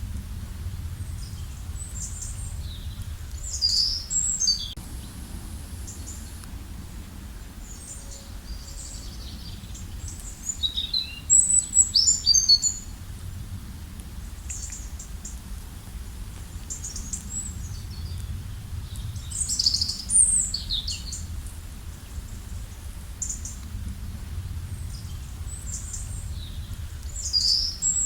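Wild birds chirping and singing in short, high, rapid phrases, in clusters a few seconds apart; the loudest bursts come about a third of the way in and again about two thirds in. A steady low rush runs underneath.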